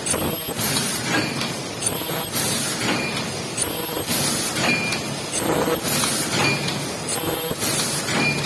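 Paper bowl forming machine running through its cycle, which repeats about every two seconds, each stroke bringing a burst of hiss and clacks.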